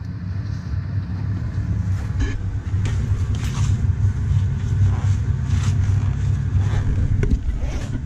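Lennox ML193 gas furnace blower running on its highest speed, a steady low hum. Short rustles and knocks of a meter case being handled come several times over the top.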